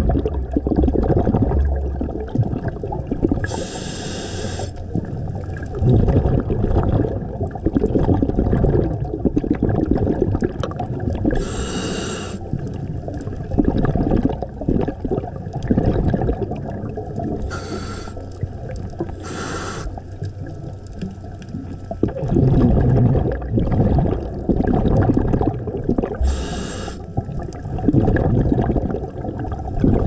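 Scuba diver breathing through a regulator underwater: short hissing inhalations every several seconds, and between them long rumbling gurgles of exhaled bubbles.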